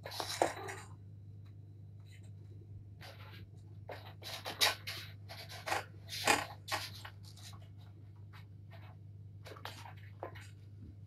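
A kitten's claws scratching and scrabbling on a carpeted cat tree as it climbs, in irregular short bursts over a steady low hum.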